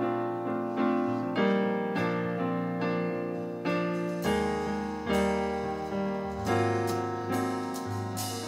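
Piano sound from a keyboard playing slow chords, struck a little more than once a second and each left to ring and fade. A deep bass note joins about four seconds in.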